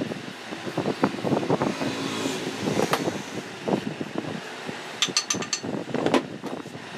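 Metal parts of a dismantled electric water pump being handled and set down on a wooden workbench: irregular knocks and rustles, with a quick run of light metallic clinks about five seconds in. A motor vehicle passes in the background.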